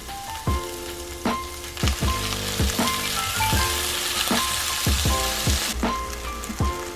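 Background music with a steady beat. About two seconds in, a hiss of food sizzling in a frying pan joins it and cuts off suddenly before six seconds.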